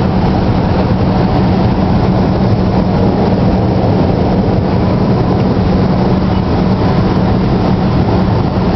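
Steady drone of a vehicle driving at highway speed, heard from inside the cabin: engine hum with a constant low tone and an even rush of road noise.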